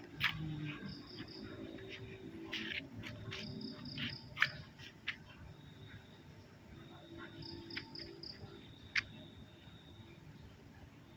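Insect-like trilling, a steady high tone that comes and goes, with two short runs of four or five quick chirps and a few sharp clicks scattered through.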